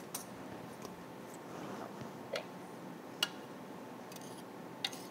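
A few sharp clicks and light knocks, about five in all, as noodles are tipped from a pot onto a ceramic plate; the loudest comes about three seconds in.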